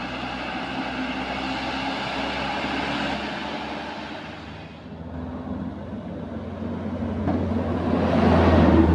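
Diesel truck engines running as trucks pull uphill past close by; the sound dips about halfway through, then a lower engine drone builds to its loudest near the end.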